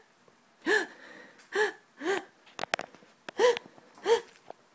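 A woman making five short, wheezing gasps, each rising and falling in pitch: a staged severe-asthma gasp, like sucking air through a straw. A few quick clicks about two and a half seconds in.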